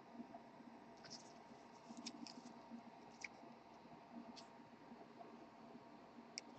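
Faint, brief scratches and clicks of trading cards being handled and slid against one another, a few at a time, over near silence.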